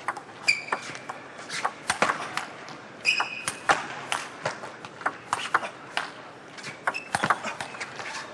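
Table tennis rally: the ball clicks off the bats and the table in a quick, irregular series. Shoes squeak sharply on the hall floor twice, about half a second in and again around three seconds in.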